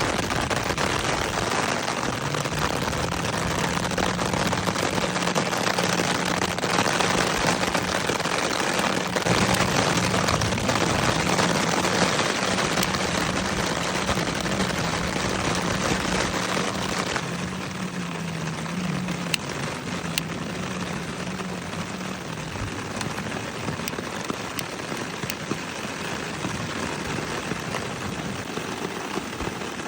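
Puris deep-frying in hot oil: a dense, steady sizzle with crackling pops, easing off a little about two-thirds of the way through as the frying settles. A faint low hum sits underneath for most of the first two-thirds.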